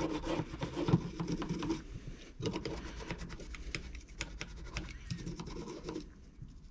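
A small stiff brush scrubbing metal Brembo brake caliper hardware clips in quick back-and-forth strokes, with a brief pause about two seconds in. It is a light agitation to lift loosened rust and brake dust after a soak in Evapo-Rust.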